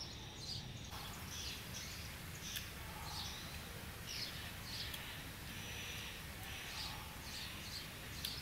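Birds chirping: many short, high calls, about two a second, over a steady low background hum.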